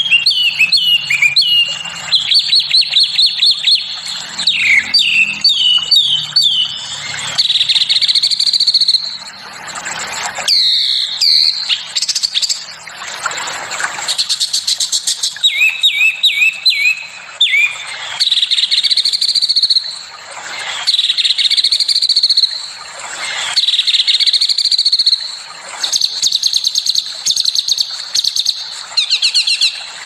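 Small songbirds singing a fast, harsh medley. Runs of quick down-slurred chirps alternate with rasping, buzzy trills and rapid-fire rolling notes, coming in bursts a few seconds long.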